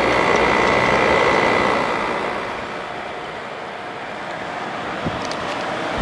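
1988 Fedders Cool Tote 5000 BTU window air conditioner running with its compressor on, heard up close at the grille as a steady rush of fan air with a faint high whine for the first couple of seconds. The compressor itself is super quiet and barely audible under the fan.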